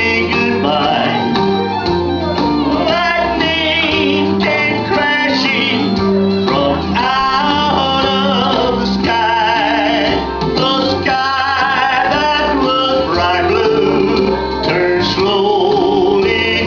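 Country song played loud over a PA: guitar-led accompaniment with a wavering lead melody and a man's singing voice.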